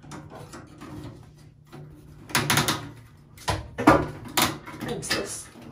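A long plastic LED tube light being fitted into a medicine cabinet's side light fixture: a run of knocks and clatters against the cabinet, the loudest a cluster about two and a half seconds in and sharp knocks around four seconds.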